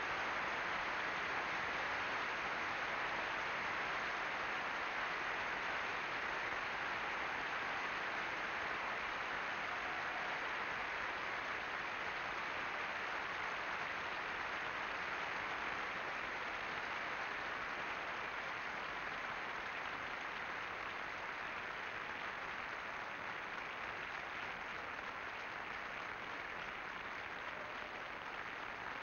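Large arena crowd applauding, a dense steady applause that slowly fades.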